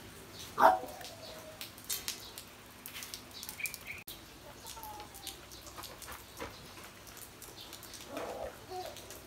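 A loud, short animal cry about half a second in that falls in pitch, then scattered light clicks and taps, a brief high chirp about three and a half seconds in, and another short cry near the end.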